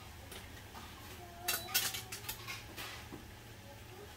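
A ceramic plate clinking and knocking against a metal wok as it is set down into boiling water for steaming, several quick clatters about halfway through.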